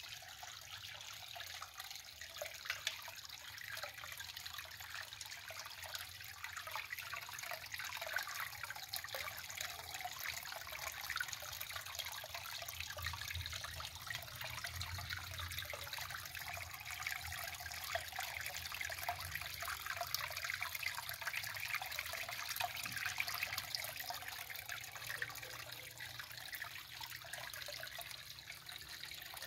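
Small cascade of water trickling over rocks and splashing steadily into a garden pond.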